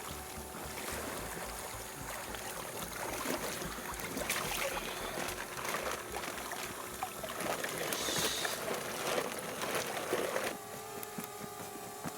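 Water splashing and sloshing as large koi are handled in pond water, louder and more churning in the middle. Near the end a steady hum comes in.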